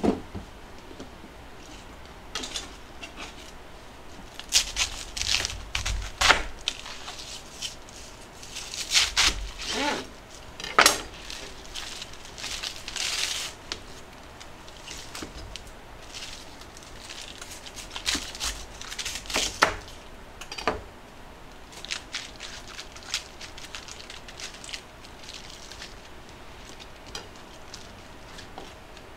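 Napa cabbage leaves being peeled off and broken apart by hand on a cutting board: irregular crisp crackling and tearing in clusters, with a few sharper knocks.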